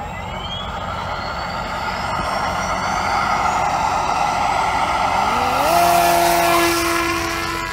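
Electric motor and propeller of a large RC flying wing spooling up with a rising whine, then running at full throttle with a loud propeller buzz for the hand launch. About five seconds in, a second tone rises and then holds steady.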